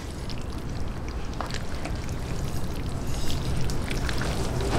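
Spaghetti being tossed through thick tomato sauce in a pan with a spatula and ladle: wet squelching and slopping of noodles and sauce, with a few light clicks of the utensils against the pan.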